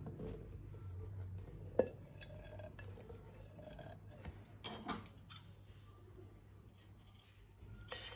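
Light handling noise of small objects: faint rustling, with a sharp click about two seconds in and a few clicks and taps around five seconds.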